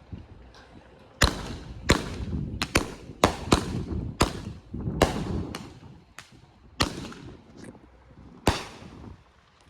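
Fireworks going off: about a dozen sharp bangs at uneven intervals, each with a brief echoing tail, starting about a second in and thinning out near the end.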